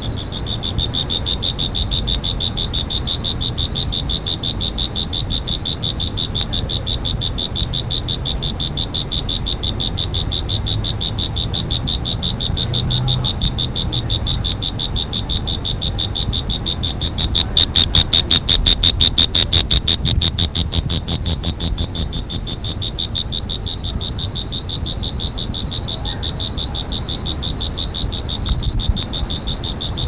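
An insect trilling continuously: a high, steady-pitched chirr made of very fast pulses, growing louder for a few seconds just past the middle. A low rumble runs underneath.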